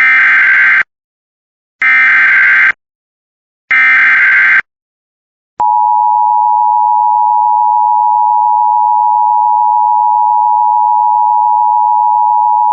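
Emergency Alert System alert opening: three short buzzy bursts of SAME digital header data, about a second apart, then about five and a half seconds in the loud, steady EAS two-tone attention signal begins. It heralds a severe thunderstorm warning.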